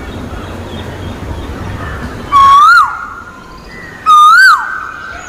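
Asian koel (koyal) calling twice, about two seconds apart. Each call is a loud, clear whistled note that rises slightly and then drops away quickly. A steady background hiss runs underneath.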